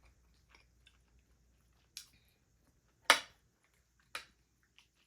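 A person eating with mouth close to the microphone: soft chewing clicks, then a few sharp wet smacks about a second apart, the loudest past the middle.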